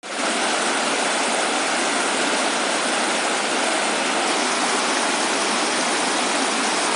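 Shallow rocky stream rushing in rapids over and between boulders, a steady, even rush of water.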